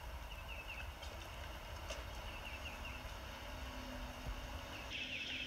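Faint outdoor ambience: small birds chirping in short repeated phrases over a low rumble. A steady high buzz comes in near the end.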